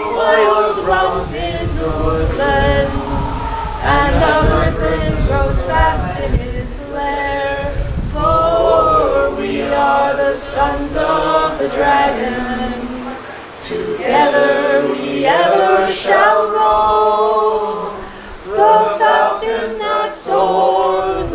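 Unaccompanied singing of a verse: a woman's and a man's voices with other voices singing along, in phrases with short breaths between them.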